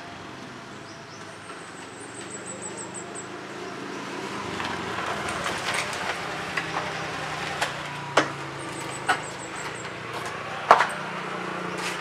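Honda BeAT Street motor scooter's small engine approaching and running, growing louder from about four seconds in as the scooter pulls up, with a few sharp clicks near the end.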